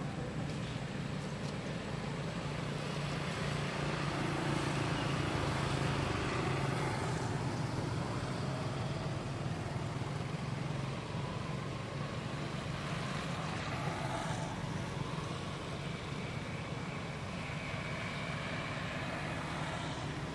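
A steady low engine-like hum under a constant wash of outdoor background noise.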